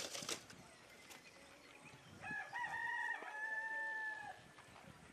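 A rooster crowing once, about two seconds in: a few short notes run into a long held final note.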